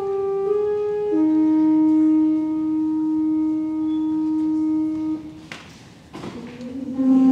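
Pipe organ playing slow held chords, the pitch moving from note to note about once a second, until it stops about five seconds in. Two short noises sound in the brief pause, and a new musical phrase begins near the end.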